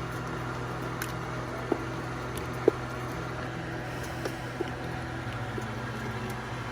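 A steady low mechanical hum, like a kitchen appliance or fan running, with a couple of light ticks in the first few seconds.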